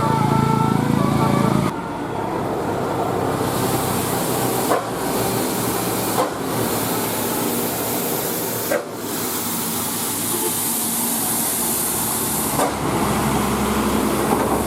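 A bus's multi-tone telolet horn sounding for the first second or two, then cutting off abruptly. After that comes loud roadside bus and traffic noise with a steady hiss, broken by several sudden short drops in level.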